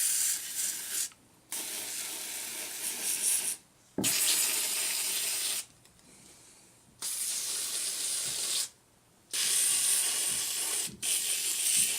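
Aerosol can of no-rinse foam coil cleaner spraying onto refrigerator coils in hissing bursts of one to two seconds, with short pauses between them.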